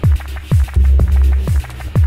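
Electronic music with a steady kick-drum beat over a heavy sustained bass.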